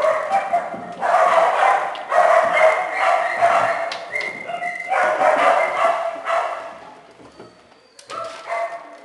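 Several small dogs barking and yelping one after another. The calls thin out about seven seconds in.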